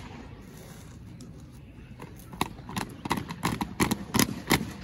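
Low background noise, then from about two seconds in a quickening run of sharp, irregular knocks, like boots striking hard ground as people step off.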